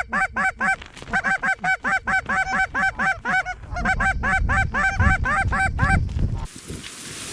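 Goose honking: quick, regular honks, about five a second, in runs broken by short pauses, with wind rumbling on the microphone underneath. About six and a half seconds in it cuts off abruptly to a steady hiss of wind.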